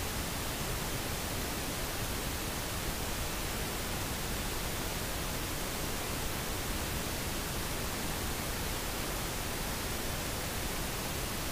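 Steady, even hiss of background noise from the recording microphone, with no other sound.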